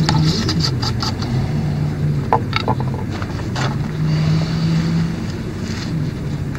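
An engine drones steadily in the background, its pitch wavering slightly, with a few light clicks from a metal can and its cap being handled.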